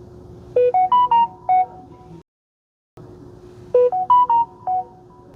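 Samsung Galaxy notification chime at 50% volume from a phone speaker: a short melody of about six bright tones, lasting about a second. It plays once from a Galaxy M33, then after a brief silent gap plays again from a Galaxy A33.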